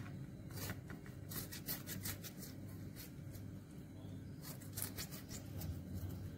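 Knife cutting a lemon held in the hand into small pieces over a bowl, a run of faint short cutting clicks.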